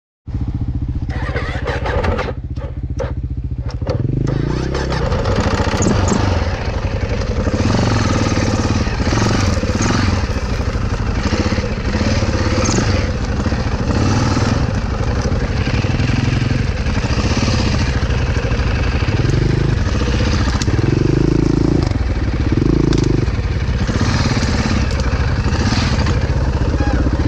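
Dirt bike engine running while being ridden slowly over a rough trail, the throttle opened and closed again and again so the engine note rises and falls.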